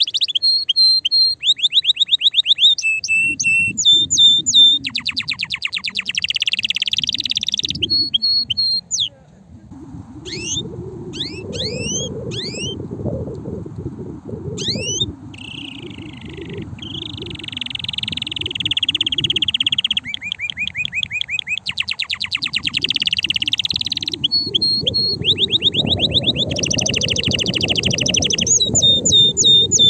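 Male canary singing: a long run of rapid trills and rolled phrases, each repeating one note many times a second before switching to a new phrase, some high and whistled, others lower and buzzier. About ten seconds in comes a short stretch of quick separate downslurred notes.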